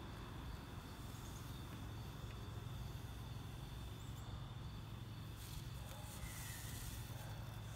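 Quiet outdoor ambience: a steady low hum with a thin steady high-pitched tone over it, and a couple of faint short chirps about four and six seconds in.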